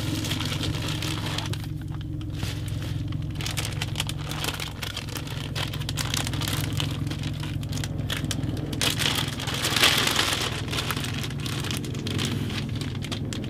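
Clear plastic bag crinkling and rustling as it is lifted from a cardboard box and handled, in irregular bursts that grow denser near the end, over a steady low hum.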